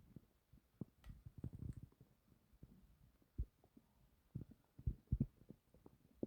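Human stomach gurgling: irregular low pops and bubbling rumbles, a cluster about a second in and a few single pops after.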